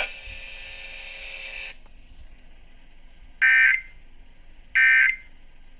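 Emergency Alert System end-of-message data bursts: three short, loud, buzzing digital bursts about 1.4 seconds apart, the SAME code that closes a broadcast severe thunderstorm warning. Before them a faint steady hum stops about a second and a half in.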